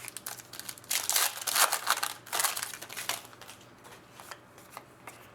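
Trading cards and their packaging being handled: papery rustling and crinkling in bursts for about two seconds, with a few small ticks before and after.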